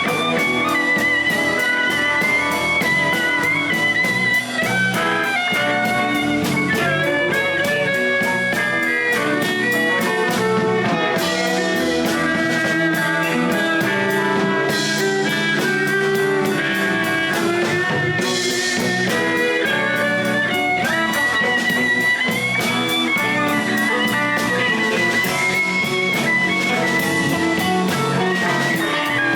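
Blues band playing an instrumental passage: a guitar lead with bent notes over bass and drum kit.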